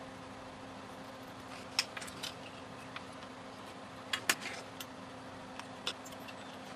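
A few sharp small clicks and clinks of parts being handled at a workbench: a metal shielded can and small components knocking while a probe is taken apart. Under them runs a faint steady hum.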